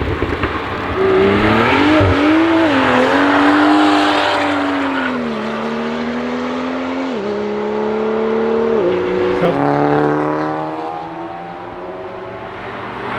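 A car engine driving past at speed, its pitch rising and dropping in steps as it changes gear, then fading near the end.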